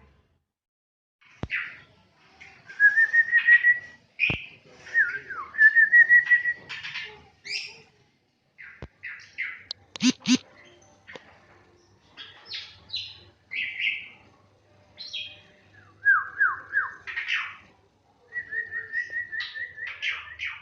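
Asian pied starling (jalak suren) singing: a varied run of whistles, chirps and short rising and falling notes in phrases with short pauses between them, with a short harsh double note about halfway through.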